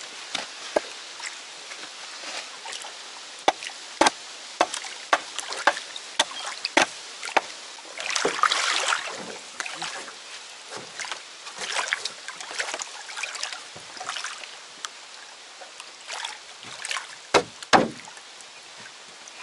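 Sharp knocks and clatter in a boat: a quick run of knocks about two a second, a brief rushing noise, then scattered knocks and two heavy thumps near the end.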